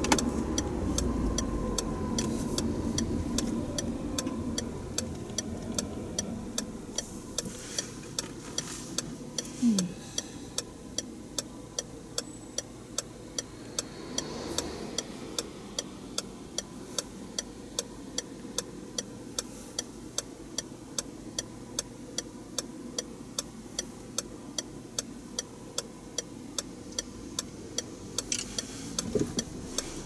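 A car's turn-signal indicator ticking steadily and evenly, starting about six seconds in, over the car's cabin and road noise, which fades as the car slows.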